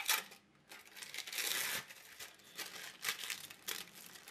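Crinkling and tearing of the thin plastic wrapper being peeled off a processed cheese slice, in several rustling bursts, the longest about a second in.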